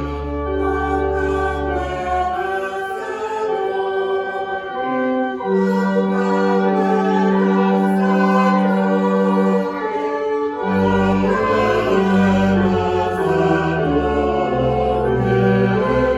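Choir singing a hymn in held chords. The low bass part drops out after about two seconds and comes back about two-thirds of the way through.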